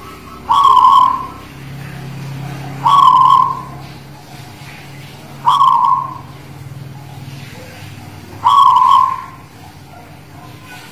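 Zebra dove (perkutut) of the local Guling Murio strain cooing from its perch: four loud, clear notes about every two and a half to three seconds.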